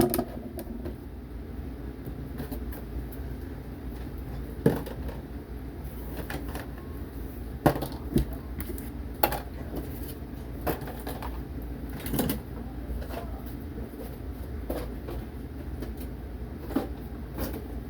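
Small plastic toy parts being handled: scattered clicks and knocks, about a dozen spread over the stretch, over a low steady hum.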